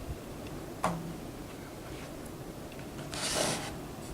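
Plastic toy figure being handled: a light knock about a second in, then a brief rubbing scrape about three seconds in.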